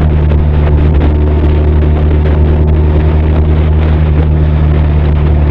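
Benelli TRK 502's parallel-twin engine and exhaust running at a steady speed while cruising, heard close up from a saddlebag. The pitch holds level, with no revving or gear changes.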